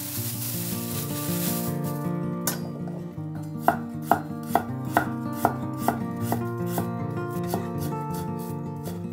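Plastic bag rustling for about the first two seconds, then a GLOBAL kitchen knife slicing ginger on a wooden cutting board in sharp, even strokes, about two a second. Soft background music plays underneath.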